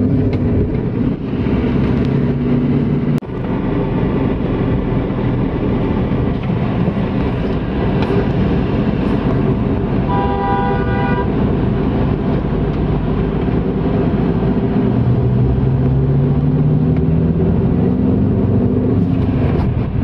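Car engine and road noise heard from inside the cabin, the engine note rising in pitch near the end. A vehicle horn honks once for about a second midway.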